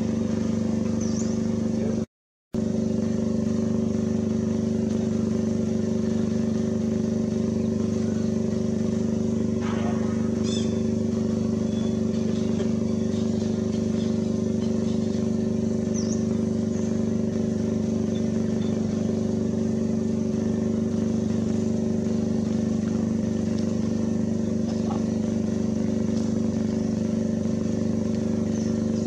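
A steady mechanical hum, like an engine or motor running at a constant idle, holding the same few low tones throughout. It cuts out briefly about two seconds in, and a few faint high chirps sound over it.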